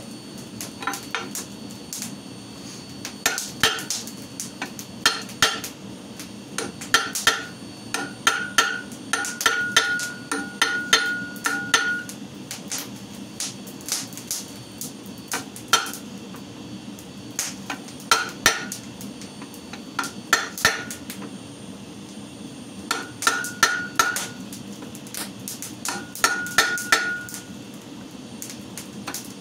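Hand hammer striking a chisel held on a hot steel leaf on a steel anvil plate, cutting the leaf's vein grooves. The blows come in quick runs of several strikes a second with short pauses between, each a sharp metallic clink, and a high ring hangs on through some runs.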